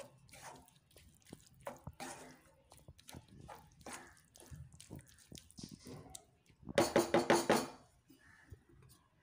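Spatula stirring a thick, wet dried-anchovy gravy in a pan, with irregular scraping and soft knocks against the pan. About seven seconds in, a loud, harsh, rapidly pulsing sound lasts about a second.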